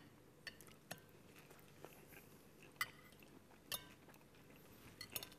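A few light, sharp clicks of cutlery against a plate, scattered over an otherwise near-silent room.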